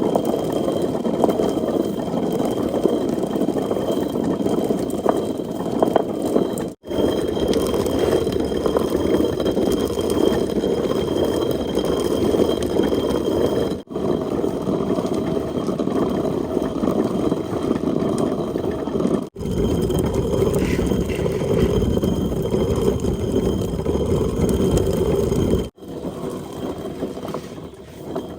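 A steady mechanical running noise like an engine, with some rattle, broken off abruptly four times.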